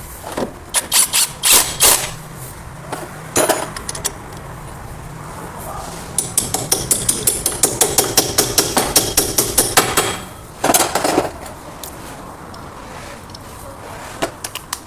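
Hammer blows on metal during wheel hub bearing replacement: a few hard strikes, then a quick run of lighter rapid blows, about five a second, lasting around four seconds, and one more short burst near the end.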